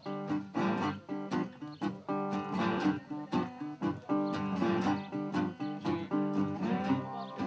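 A resonator guitar and two acoustic guitars play country blues together. Plucked notes and strummed chords move in a steady rhythm, with a few notes sliding or bending upward near the end.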